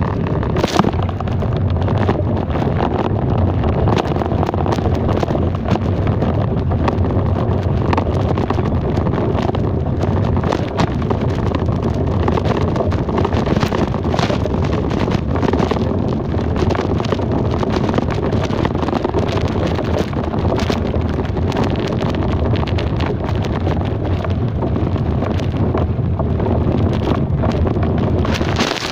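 Steady wind rumble on the microphone while riding along, over the running noise of the vehicle.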